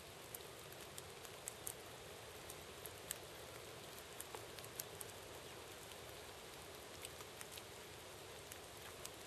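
A locust being chewed: faint, irregular crunching ticks over a quiet, steady outdoor hiss.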